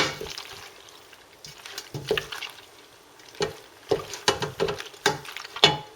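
A utensil stirring cooked macaroni in a pan, giving irregular knocks and scrapes against the pan with wet squelching of the pasta.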